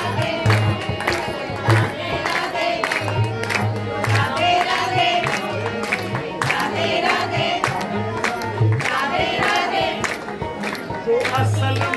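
Hindu devotional music: a Krishna bhajan, with voices singing over a steady drum beat and repeated deep bass pulses.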